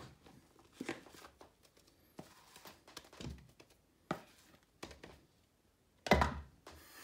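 Kitchen utensil knocking against a mixing bowl as sticky whipped-topping mixture is knocked off it: about six scattered knocks, the loudest and longest near the end.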